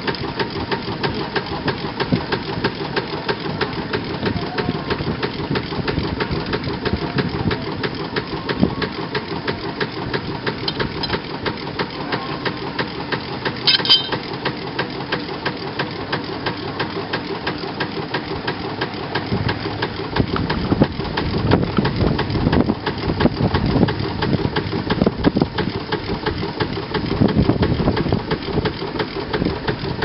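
1906 Russell sawmill steam engine running steadily with a rapid, even beat.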